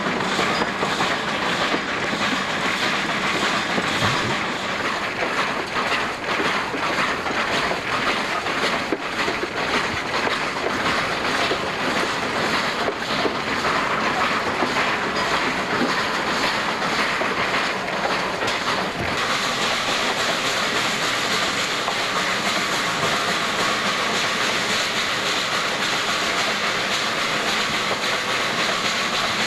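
Metre-gauge steam locomotive under way, heard from its cab: a loud, continuous noise of the running engine and its wheels on the track, with a fast repeating beat. About two-thirds of the way through the sound turns to a steadier hiss.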